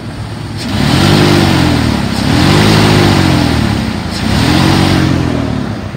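The 5.9-litre gas V8 of a 2002 Dodge Ram 2500 revved three times from idle, each rev rising and falling back to idle. It revs up nice and idles smooth.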